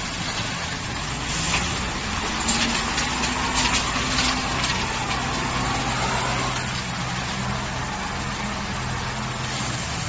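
Engine of a self-loading concrete mixer truck running steadily as the truck drives forward through mud, with a run of sharp clicks and knocks between about one and a half and four and a half seconds in.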